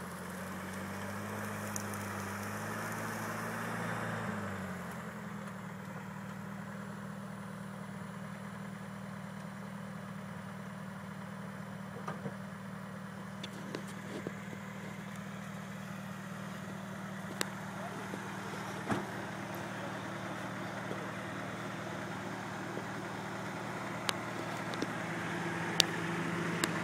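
Lifted 4x4 SUV's engine running at a slow crawl off-road, a little higher in pitch for the first few seconds and then steady and low. A few short sharp knocks come through now and then.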